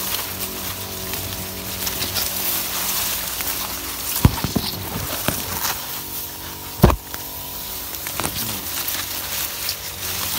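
Sugarcane leaves rustling and brushing against the phone as it is pushed through the cane, with small crackles over a steady hum. Two sharp knocks come about four and seven seconds in, the second the louder.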